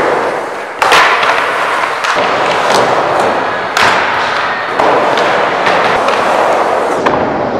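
Skateboard wheels rolling on a wooden vert ramp with a steady rushing rumble. Sharp knocks of the board against the ramp and coping come about a second in and near the four-second mark, with lighter ones later.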